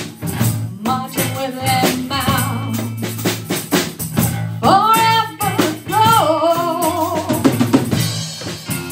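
Live band playing a song: electric guitar, electric bass, drum kit and a djembe, with a woman singing a wavering line in the second half.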